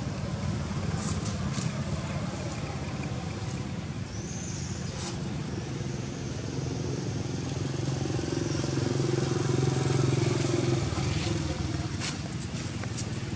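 A motor engine running with a steady low hum, swelling louder about two-thirds of the way in and then dropping back.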